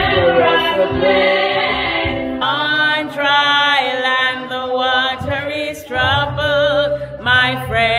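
A group of voices singing together in choir style.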